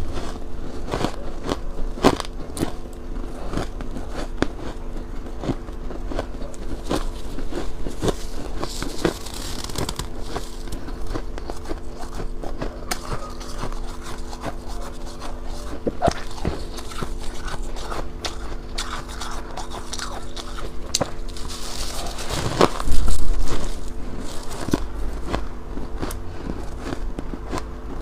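Ice being bitten and crunched in the mouth: a steady run of sharp, crackling crunches. A steady low hum sits underneath, and there is one brief loud thump about three quarters of the way through.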